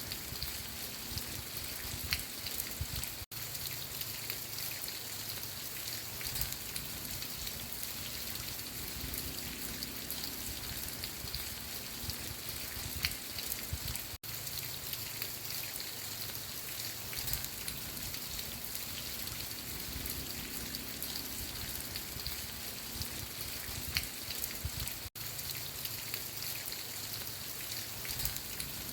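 Steady rain falling on a surface, with single drops heard as small clicks over the even hiss. The sound cuts out for an instant three times, about eleven seconds apart.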